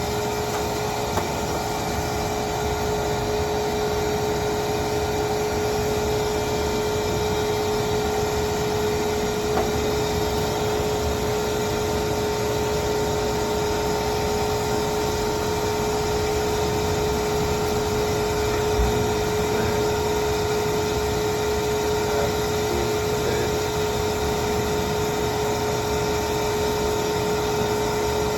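A motor-driven machine running steadily, a constant hum with one clear, unchanging mid-pitched tone over an even whir.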